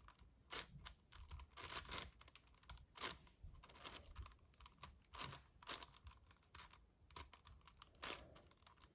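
Magnetic 7x7 speed cube being turned by hand: faint, irregular clicks of its layers turning, a few a second.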